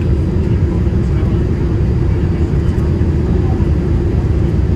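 Loud, steady low rumble of a Boeing 787-8 airliner heard from inside the passenger cabin.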